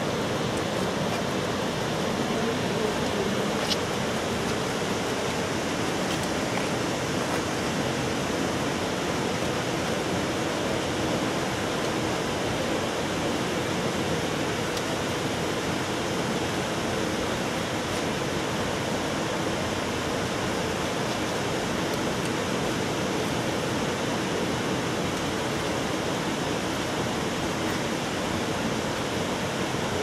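Large waterfall's falling water rushing steadily, an even wash of noise that does not change.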